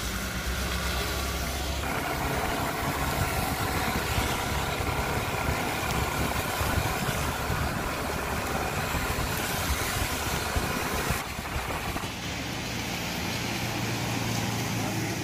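Motor scooters and cars running along a wet street, their engines heard over a steady hiss of tyres on the wet road and rain. A scooter engine hums louder near the end.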